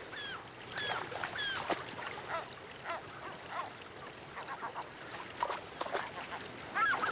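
Gulls calling, a string of short arched cries, over the steady rush of a shallow river. The calls grow busier near the end.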